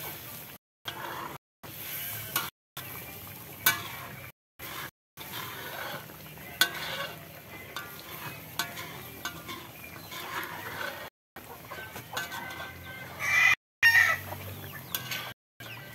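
Metal spatula stirring and scraping in a black iron wok of simmering rendang, with chickens clucking in the background and a rooster crowing loudly near the end. The audio cuts out briefly several times.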